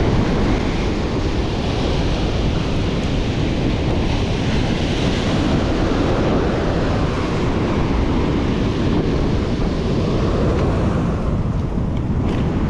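Ocean surf breaking and washing over a rocky shore in a steady, continuous roar, with wind buffeting the microphone.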